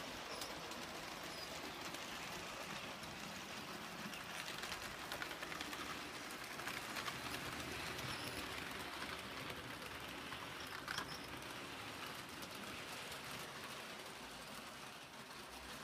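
IHC HO-scale steam locomotive and passenger cars running on model railroad track: a steady whir with many small clicks of the wheels on the rails.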